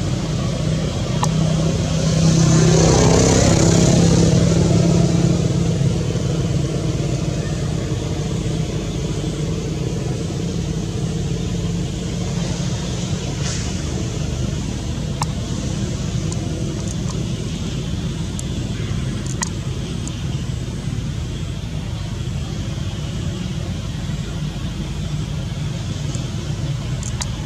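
Steady low motor-vehicle rumble of nearby traffic, with a vehicle passing and loudest about two to five seconds in, its sound sweeping down in pitch as it goes by. A few faint clicks later on.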